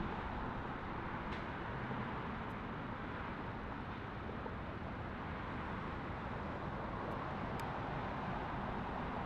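Boeing 737-700 jet engines (CFM56-7B turbofans) at takeoff power during the takeoff roll and rotation: a steady, even rush of jet noise.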